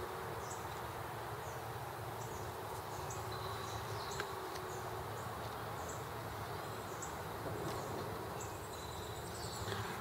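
Honeybees humming steadily around an open Langstroth hive, with a faint high chirp repeating about once a second and one light tap about four seconds in.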